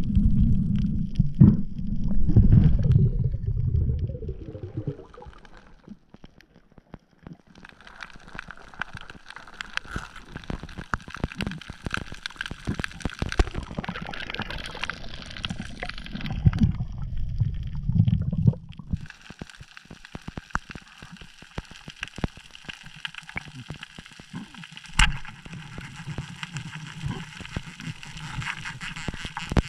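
Underwater sound through a camera housing over a coral reef: a low rush and gurgle of moving water for the first few seconds, then a dense crackle of fine clicks over a hiss.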